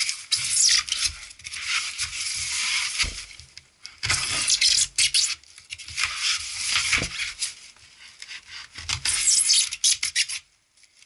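Hands and a knife rubbing and scraping along the taped seam of a polystyrene foam box, in scratchy bursts of a second or two with short pauses, stopping shortly before the end.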